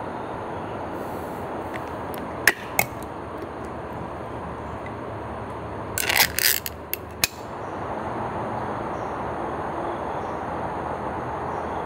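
Hands handling a packed meal and its container: two sharp clicks, then about a second of scraping and clinking followed by two more clicks, over a steady background noise that gets a little louder near the end.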